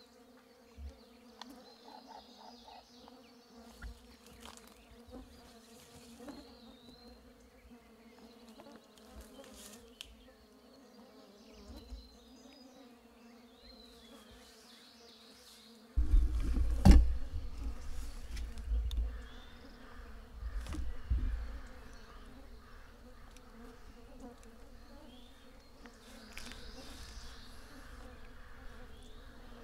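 Swarming gnats buzzing close around the microphone in a steady hum. About 16 seconds in, a low rumble starts, with a sharp thump a second later, and fades within a few seconds.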